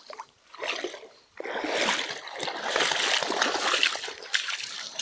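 Footsteps crunching and sliding on loose gravel and stones: a dense, rough scraping noise for about three seconds, starting just over a second in.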